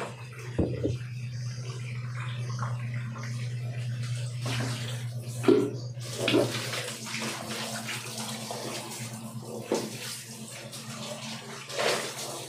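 Water running from a handheld shower hose and splashing onto a tiled floor, over a steady low hum. A few short thumps and bumps break through, the loudest about halfway through.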